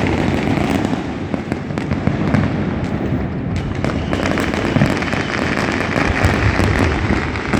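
Many fireworks and firecrackers going off at once across a city, a continuous din of overlapping booms, cracks and pops heard from a distance.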